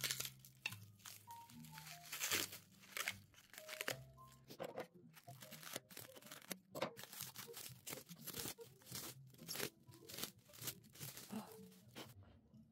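Clear plastic wrap crinkling and tearing as it is pulled off by hand, a run of short crackling rustles. Soft background music plays underneath.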